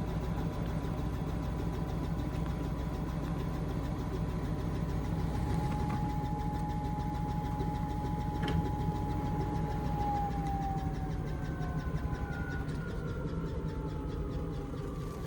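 Indesit IMA862 washing machine in an intermediate spin: the motor whines and the drum rumbles steadily, then the whine falls in pitch from about ten seconds in as the drum slows down.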